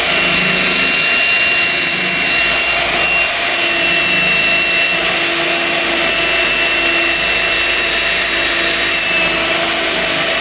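Power drill running steadily with a high whine, boring a bolt hole through a trailer.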